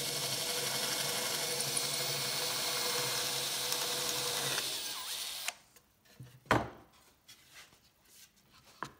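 Festool drill boring through cured epoxy resin set in a wood slab: the drill runs steadily with the bit cutting, then stops abruptly about five and a half seconds in. A few knocks follow, one sharp and loud.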